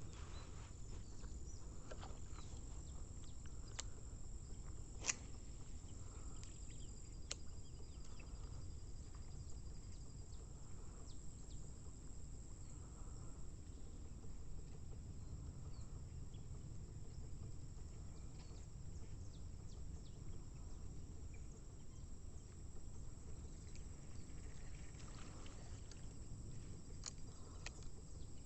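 Outdoor ambience with a steady, high-pitched drone of insects over a low, constant rumble, and a few faint clicks.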